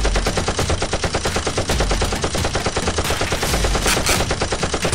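Sustained automatic gunfire, a rapid and even string of shots with no break, of the kind dubbed over blaster fights. A brief brighter hiss rises over it a little past the middle.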